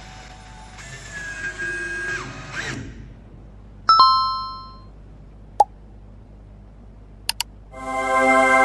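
Editing sound effects: a bright chime ding about four seconds in that rings out over about a second, a short pop, then two quick mouse-click sounds and a swelling chord of sustained tones near the end.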